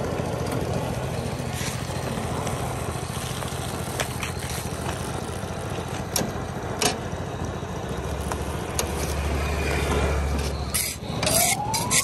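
Engine of a thermoplastic road line marking machine running steadily as it lays paint and sprays glass beads, a low even hum with a few scattered clicks. Near the end the hum drops away and sharper ticks and a short rising whine come in.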